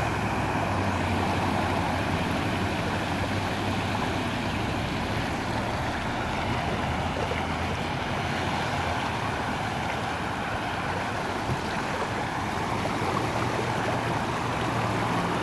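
Floodwater rushing steadily over a street, a continuous wash of flowing water. Near the start a pickup truck drives through the flooded road, its engine humming and its tyres splashing water aside.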